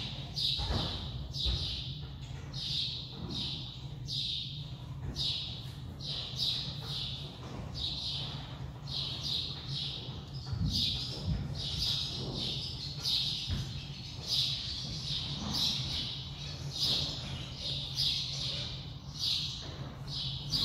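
A bird chirping over and over, about one to two short high chirps a second, above a steady low hum.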